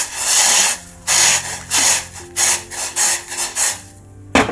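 A spoon stirring spiced water in a metal pan, scraping around the bottom in repeated rough strokes that come quicker toward the end, then a single sharp knock near the end.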